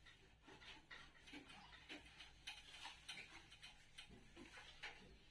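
Faint, rhythmic swishes of a cloth duster wiping a whiteboard, about two strokes a second.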